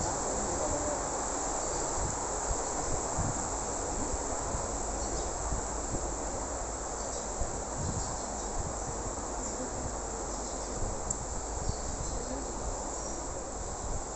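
A steady, high-pitched chorus of insects, with a low rumble underneath.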